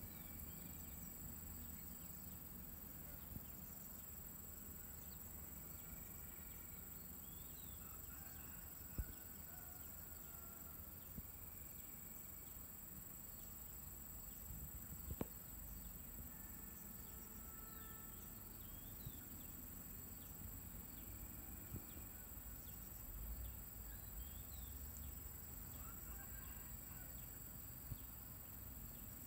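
Faint outdoor ambience: a steady high insect drone, with scattered short, distant bird chirps and a few sharp clicks, the loudest about nine and fifteen seconds in.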